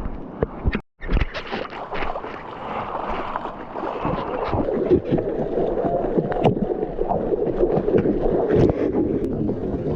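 Ocean water splashing and rushing close to a surfer's POV camera, with wind on the microphone; the sound cuts out abruptly for a moment just before a second in.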